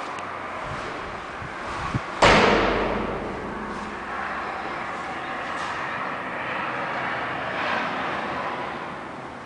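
A single hard knock about two seconds in, just after a small click, over a steady rushing background noise.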